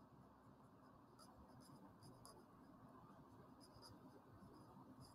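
Faint scratching of a felt-tip marker writing on paper, a series of short separate strokes as letters are formed.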